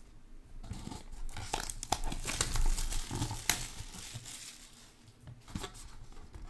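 Plastic shrink wrap crinkling and tearing as it is stripped off a cardboard trading-card box, with quick crackling clicks, busiest in the middle.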